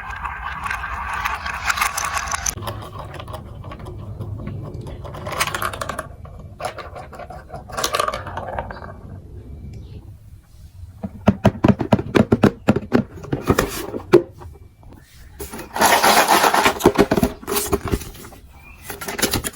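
Marbles rolling down a plastic building-block marble run, rumbling along the track and clattering through the pieces. There is a quick run of rapid clicks past the middle and a louder rattling rush near the end.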